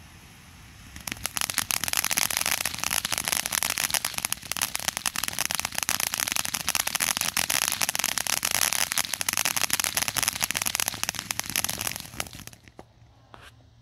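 Ground fountain firework spraying sparks: a soft hiss that, about a second in, breaks into a dense, steady crackle of popping sparks, which dies away near the end.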